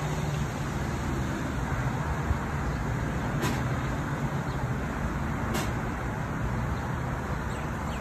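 Steady road traffic noise from a city intersection with cars driving through, under a low hum. Two brief sharp clicks come about two seconds apart, near the middle.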